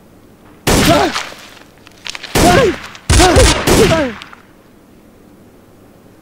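Three bursts of gunfire, about a second in, about two and a half seconds in, and a longer burst lasting about a second just after, with men yelling over the shots.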